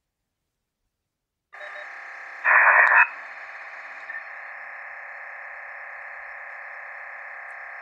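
DMR handheld radio's speaker playing received digital voice-channel audio: a thin, steady, tonal sound that starts about one and a half seconds in, with a much louder stretch for about half a second soon after.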